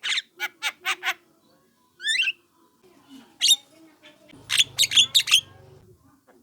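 Young Javan myna calling: a quick run of short harsh calls, a rising call about two seconds in, then another quick cluster of harsh calls past the halfway point.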